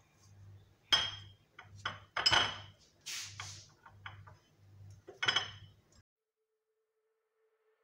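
Metal fork clinking and scraping against a ceramic plate while mashing a banana: a few sharp clinks with softer scrapes between. The sound cuts off to silence about six seconds in.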